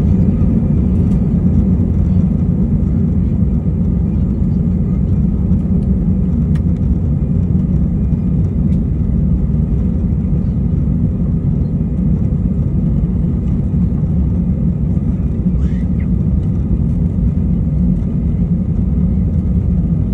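Steady low rumble of an Airbus A320 heard from inside the cabin as the airliner taxis on the ground, with engine noise and the rolling of the gear blended together. The level stays even throughout, with no spool-up to takeoff power.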